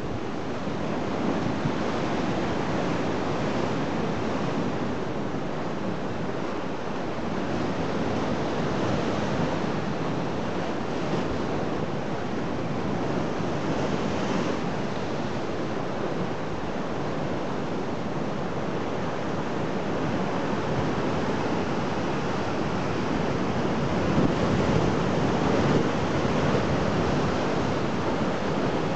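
Sea surf washing against a rocky shore and concrete tetrapods: a continuous rush of breaking waves, surging a little louder near the end, with some wind on the microphone.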